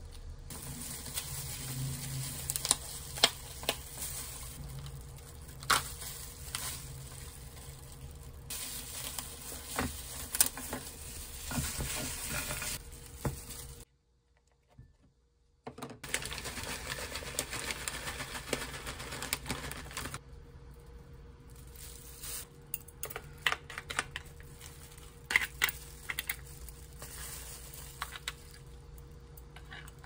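Gloved hands handling soy-sauce-marinated crabs: wet crackling with sharp clicks and taps of shell. It drops out briefly about halfway, then rice is tipped into a bowl and a spoon scrapes roe from a crab shell, with scattered clicks.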